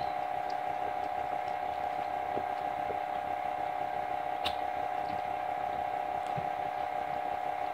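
Steady mechanical hum with one strong even tone, unchanging throughout, with a few faint ticks and one sharper click about four and a half seconds in.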